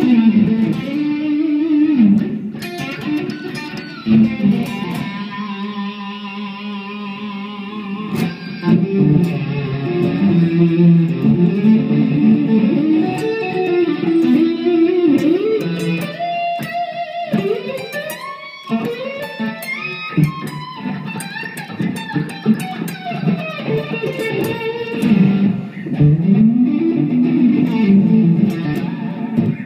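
Epiphone Les Paul Custom electric guitar played through an amplifier on its neck pickup alone, a Seymour Duncan SH-2 Jazz humbucker. It plays single-note lines with string bends and a held note with vibrato.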